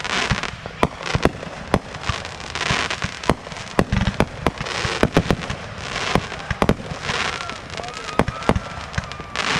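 Fireworks going off: many sharp bangs in irregular succession, several followed by a short crackling fizz.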